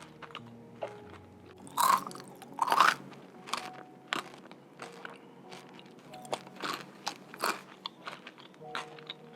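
Eating a tomato basil cookie: two loud crunchy bites about two and three seconds in, followed by chewing with many short crisp crunches.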